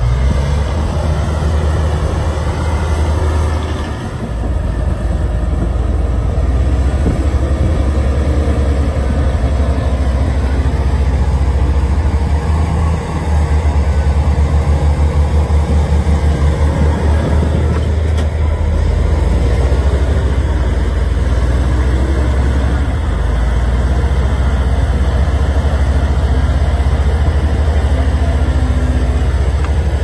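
Diesel engines of Komatsu crawler bulldozers running, a heavy steady drone that takes on an even, pulsing throb for a few seconds midway.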